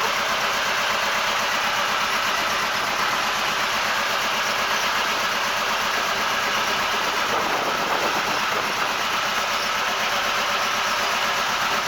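Boat engine running steadily while under way.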